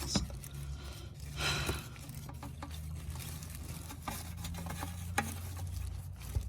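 Light clicks and rustling from a fill hose and fluid can being handled and positioned, with a brief louder rustle about a second and a half in, over a low steady hum.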